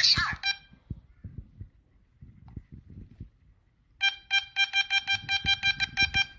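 Rapid electronic beeping, a steady pitched tone pulsed about five times a second, starting about four seconds in. It follows a short chirp and some soft low taps.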